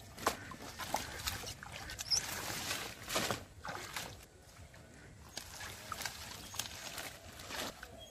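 Hands splashing and squelching in shallow muddy water and rustling through water hyacinth: irregular wet splashes, squelches and plant rustles, busier in the first half.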